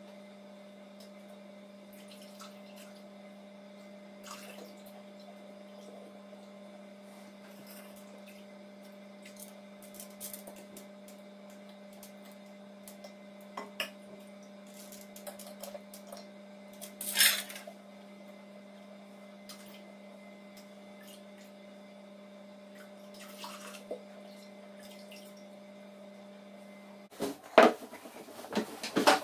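Metal ladle clinking and scraping in a steel pot while liquid is ladled and poured, with small drips, over a steady electric hum. There is one louder clatter about halfway. Near the end the hum stops and there are a few loud knocks on a wooden tabletop.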